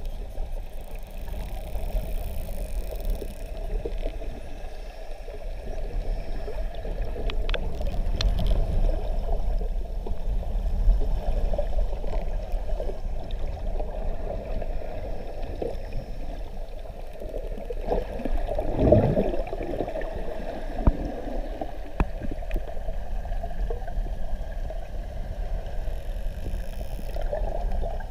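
Underwater ambience heard through a camera's waterproof housing: a steady low rush of water with a hum, and a brief swoop that falls and rises again about two-thirds of the way through.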